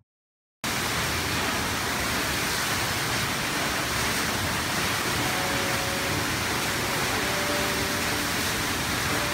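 A waterfall's steady rushing noise, cutting in abruptly after a brief silence about half a second in.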